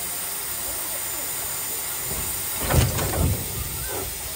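Small narrow-gauge steam locomotive hissing steam steadily, then starting to move off, with a couple of loud exhaust chuffs about two and a half seconds in and steam blowing from its cylinder drain cocks.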